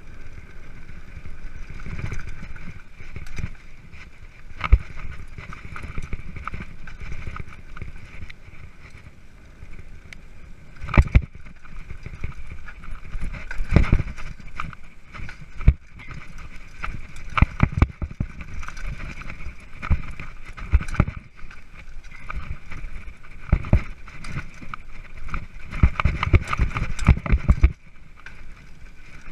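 Mountain bike rolling over a rough dirt trail: a steady rumble of tyres and frame with frequent sharp knocks and rattles from bumps. The knocks come in clusters about eleven and fourteen seconds in and again near the end.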